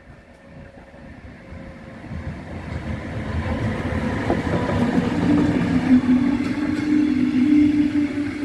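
A train approaching, growing steadily louder over several seconds, with a steady low hum coming in about five seconds in.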